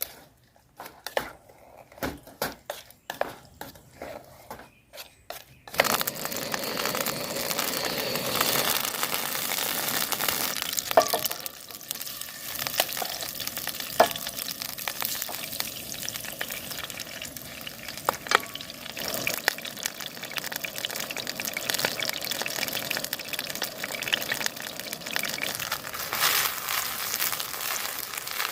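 Seafood-and-minari pancake batter frying in oil in a pan, sizzling steadily. For the first six seconds or so there are only light separate clicks and knocks of utensils. Then the sizzle starts suddenly, as the batter hits the hot oil.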